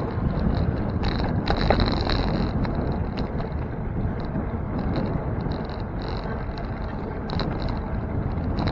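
Riding noise picked up by a bicycle-mounted camera: steady road rumble and wind on the microphone, with a light high chatter that comes and goes.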